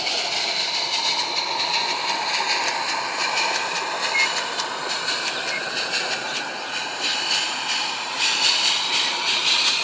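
A small 0-4-0 live-steam garden-railway locomotive running with a train: a steady hiss of steam.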